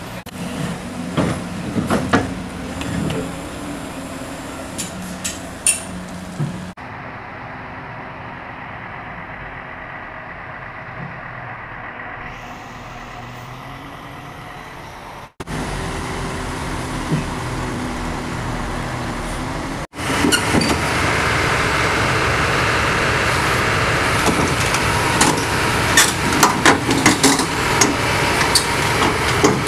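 Heavy diesel vehicle engine running, heard in several clips joined by abrupt cuts; the last clip, about two-thirds of the way in, is louder, with rapid clanks and rattles over the engine.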